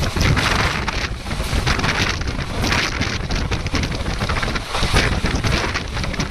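Wind rushing and buffeting the microphone at an open window of a moving passenger train, in irregular gusts over the train's steady running noise.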